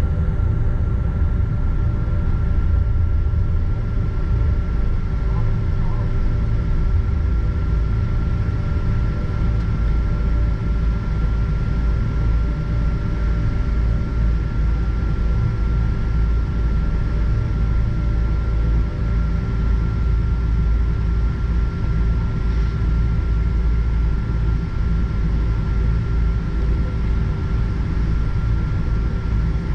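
Cabin noise of a Boeing 777-200ER taxiing, heard from a seat over the wing: a steady low rumble with constant whining tones from its Rolls-Royce Trent engines at idle.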